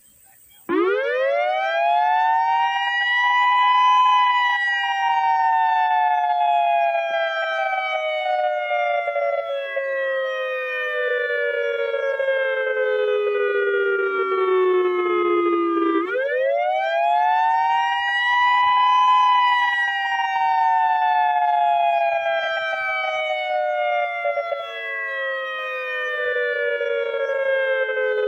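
Federal Signal EOWS-1212 electronic outdoor warning siren sounding its Attack signal as a scheduled test. The wailing tone starts about a second in, rises quickly, falls slowly for about twelve seconds, then sweeps up again about sixteen seconds in and begins another slow fall.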